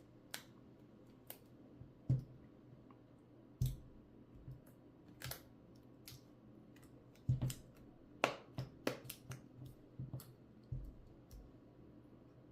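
Irregular small plastic clicks and taps, with a few louder knocks, as a replacement OLED display is pressed down and snapped into an iPhone's frame.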